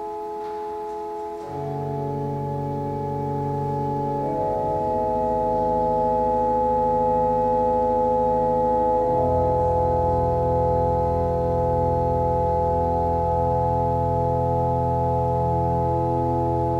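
Church pipe organ holding sustained chords, with deep bass notes entering about one and a half seconds in and the harmony shifting twice as the sound grows fuller.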